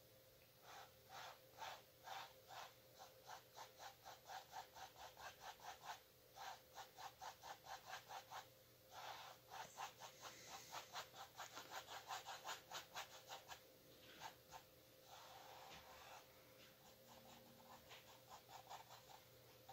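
Paintbrush scrubbing on a stretched canvas in quick, short, faint strokes, about three to five a second, with a few short pauses.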